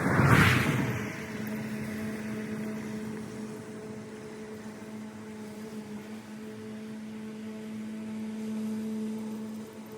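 Electric lawn tool's motor running with a steady, even hum. A loud whoosh swells and fades within the first second.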